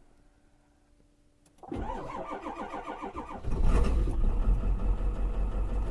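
A cold vehicle engine cranked on its starter, without its block heater plugged in, for about a second and a half, catching about three and a half seconds in and running on high idle.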